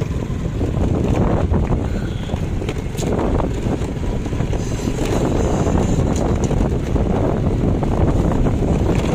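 Wind rushing over the microphone of a moving motorbike, with the motorbike's engine and tyre noise underneath, steady throughout.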